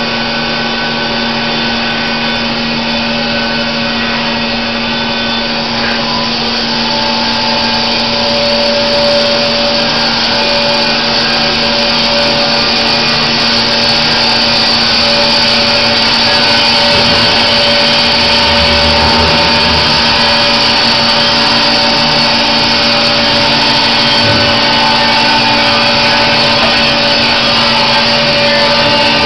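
Baker Products Super Streak band sawmill running, its blade sawing through white oak: a loud, steady mechanical whine over a constant hum, growing a little louder about eight seconds in.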